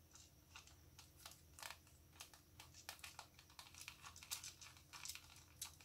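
Faint, irregular small clicks and scrapes of hand handling as a camcorder is screwed onto a mini tripod's ball-head mounting screw, a few louder clicks in the second half.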